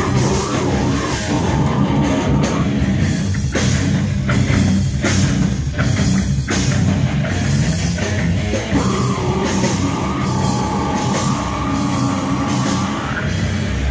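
Metal band playing live at full volume: distorted electric guitars and a driving drum kit, with a screamed vocal into the microphone. A long held note runs through the second half.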